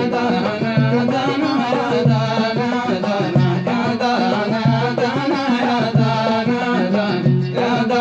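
Arabic song music: melodic lines over a steady, evenly repeating drum beat.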